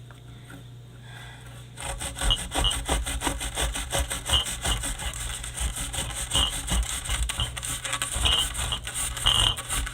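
A blade sawing back and forth through the paper casing of a dud firework mortar shell, in rapid scraping strokes that start about two seconds in.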